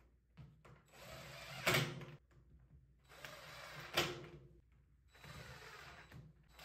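Cordless DeWalt 20V drill driving screws into plywood: three runs of a second or so each, the first two ending in a sharp click as the screw seats.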